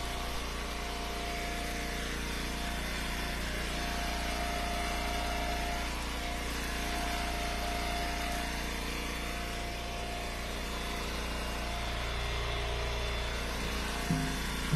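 Gas engine of a hydraulic firewood splitter running steadily at idle, a constant low hum with faint held tones and no splitting strokes.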